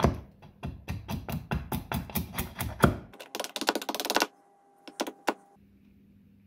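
A Gränsfors Bruks splitting axe chopping at a small wooden block in quick short strokes, about five sharp knocks a second, shaving it down roughly to a line. The strokes stop about three seconds in, followed by a brief dense crackle and two single knocks.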